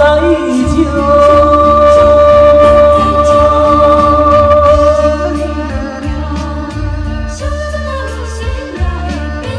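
A man singing a Hokkien song into a handheld microphone over backing music, holding one long note for about four seconds near the start before the melody moves on.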